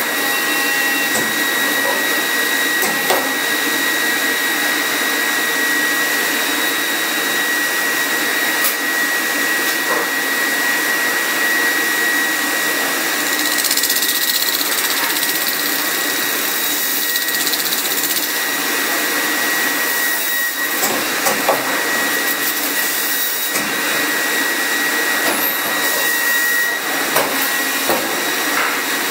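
Leico Leifeld PNC 106 CNC metal-spinning lathe running, its rollers pressing a spinning sheet-metal part against the mandrel: a steady loud hiss with a high whine. A few light clicks come near the end.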